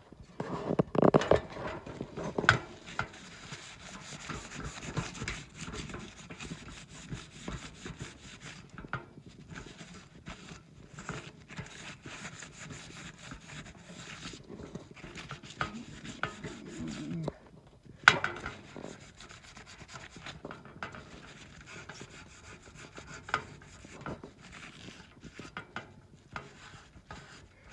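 Cloth wiping and rubbing over the surfaces of an antique oil heater, in irregular scratchy strokes, with handling clatter near the start and a sharp knock about eighteen seconds in.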